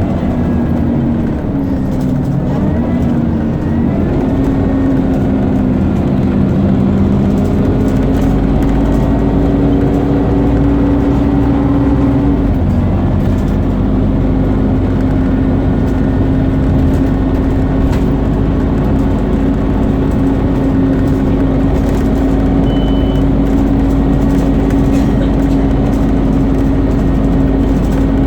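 Scania CN230UB Omnicity bus running under way, heard on board: a loud, whining engine drone, the 'loud Hoover' sound of this bus. Its tones shift and glide in pitch through the first dozen seconds or so as the bus pulls away and changes speed, then hold a steady pitch.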